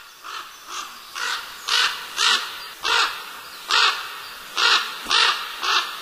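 Corvids calling: a loose series of about ten short caws, one every half second or so.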